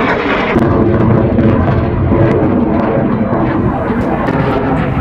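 Loud, steady jet engine noise from a display jet flying overhead, setting in about half a second in.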